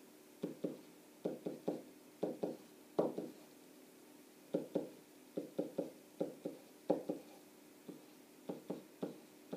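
A stylus tapping and knocking against the surface of an interactive whiteboard while numbers are written on it: short knocks, often in quick pairs and threes, with short pauses between groups, over a faint steady hum.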